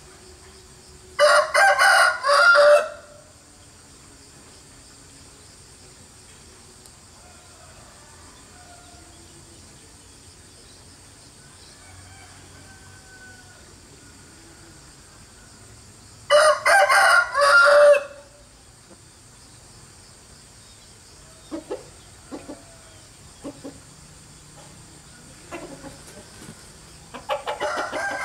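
A rooster crowing twice, about fifteen seconds apart, each crow under two seconds long and broken into several parts, with another crow starting near the end. A few short clicks and faint chirps come between the crows.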